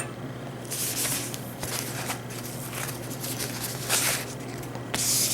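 Handling noise: several short bursts of rustling and scraping, about a second apart, over a steady low electrical hum.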